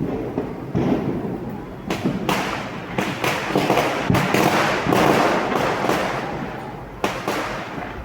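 Fireworks and firecrackers going off: a string of bangs and booms with dense crackling in between, loudest about four to five seconds in, then easing off with a last sharp bang about seven seconds in.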